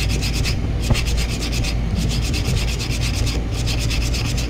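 Sandpaper rubbed by hand back and forth over the rusty shaft of an air-conditioner fan motor: quick rasping strokes in short runs with brief pauses. The sanding scours off the rust that is keeping the bearing from sliding off the shaft.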